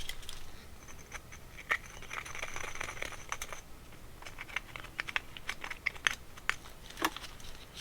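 Small hand tool scraping and clicking against a carburetor float bowl, picking out hardened deposits left by 30-year-old fuel. Scattered sharp clicks and taps, with a longer scratchy scrape about two to three and a half seconds in.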